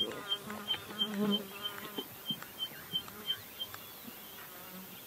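A fly buzzing in passes, loudest in the first second and a half, over a high, even chirp that repeats about three times a second.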